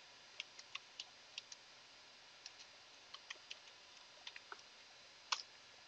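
Faint computer keyboard keystrokes: a quick, irregular run of clicks as a short command is typed, then one louder key press near the end.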